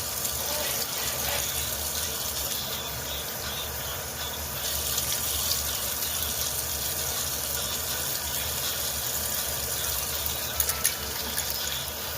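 Water running steadily, a continuous rushing hiss with a low hum beneath.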